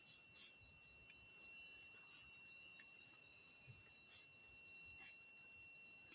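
Forest insects keeping up a steady, high-pitched droning chorus, with a few faint clicks.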